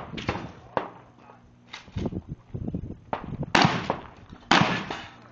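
Gunshots from a rifle or shotgun: several sharper, lighter reports in the first two seconds, then two loud shots about a second apart, each with a short ringing tail.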